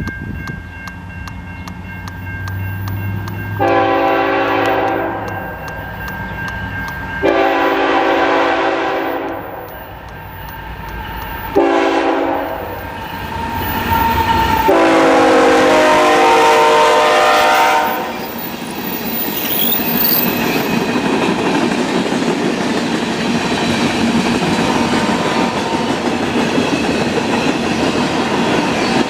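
Canadian National ES44AC diesel-electric locomotives approaching with the horn sounding the grade-crossing signal: two long blasts, one short, one long. Then the freight cars roll past with a steady rumble and clatter of wheels on the rails.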